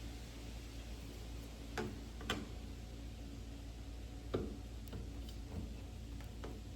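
Light clicks and taps of a sliding door handle and its metal escutcheon plates being fitted against the door, about five scattered over the few seconds, over a faint steady low hum.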